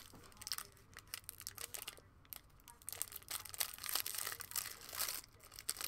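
Foil wrapper of a Bowman Draft baseball card pack being torn open and crinkled: a dense run of crackles and rustles, busiest from about three to five seconds in.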